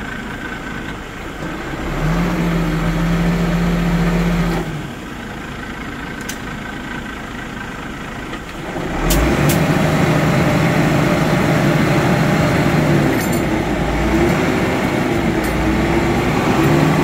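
Truck-mounted crane's engine raised to higher revs to drive the crane, once about two seconds in for a couple of seconds, then again from about nine seconds on, with a few sharp clicks or clanks.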